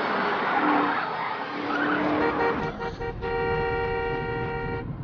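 A car driving fast with a rush of engine and tyre noise, then a car horn: a few short toots and, near the end, one long steady blast of about a second and a half.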